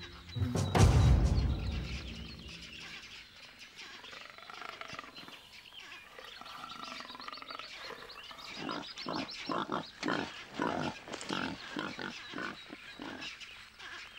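Leopard attacking warthogs: a loud growl-like burst about a second in. In the second half comes a quick run of short squeals from the warthog piglet it has caught.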